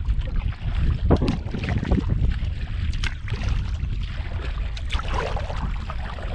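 Water splashing and lapping around a canoe in irregular strokes, under a heavy rumble of wind on the microphone.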